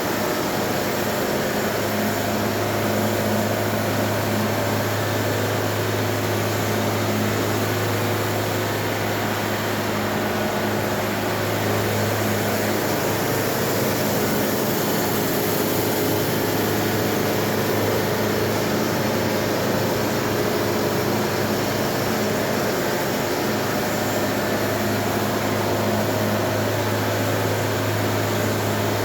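A machine running steadily: a constant engine drone with a low hum and a hiss over it, with no changes in speed or load.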